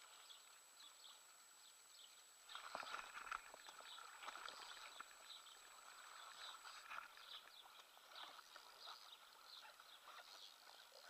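Faint, irregular splashing of a hooked wels catfish thrashing at the water's surface, starting about two and a half seconds in and going on in uneven bursts.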